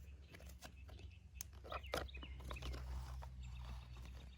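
Faint clicks and rustles of a cardboard-and-plastic toy package being handled and turned over, with a steady low rumble underneath.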